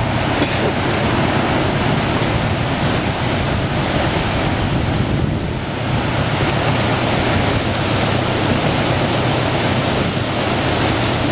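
Steady rush of wind across the microphone mixed with sea water and waves rushing past a moving boat, easing briefly about five and a half seconds in.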